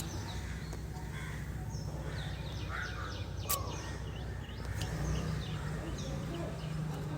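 Stopped Tata Nexon running with a steady low hum, while birds chirp and call repeatedly over it. A single sharp click comes about three and a half seconds in.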